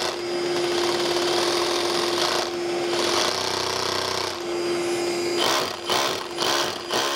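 SDS hammer drill boring into brick in two spells, the first about two and a half seconds long and the second about a second and a half, over the steady hum of a vacuum held at the hole to catch the dust. A few knocks follow near the end.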